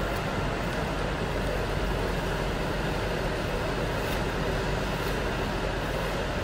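Steady rushing noise with a low hum underneath, the background of an indoor ice rink.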